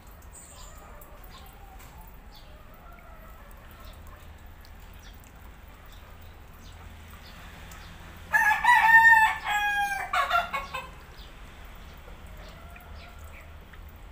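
A gamecock crowing once, a loud cock-a-doodle-doo of about two and a half seconds that starts a little past halfway.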